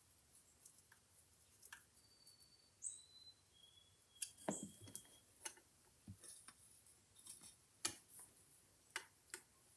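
Faint scattered clicks and taps of a screwdriver and small metal tonearm parts being handled as the yoke screw is snugged down, with a few short high metallic tings in the first half.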